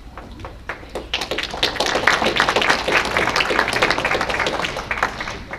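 Audience applauding: a few scattered claps at first, swelling into full applause about a second in, then dying away near the end.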